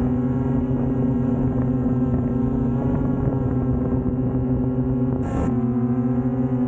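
Camera drone's propellers humming steadily in flight, several steady tones stacked together, with a brief flutter in pitch about five seconds in.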